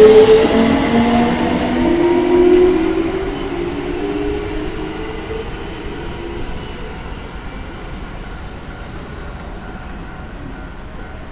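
Kintetsu 1233 series train's Hitachi GTO-thyristor VVVF inverter whining, several tones drifting in pitch, loudest in the first three seconds and then fading away as the train goes off. It is from a car of the kind singled out for making an abnormal noise.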